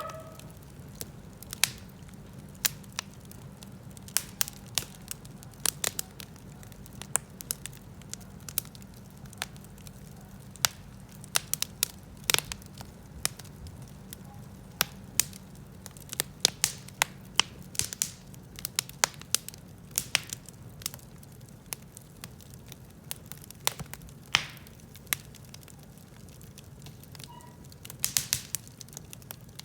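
Wood fire crackling, with irregular sharp pops and snaps, some coming in quick clusters, over a low steady hum.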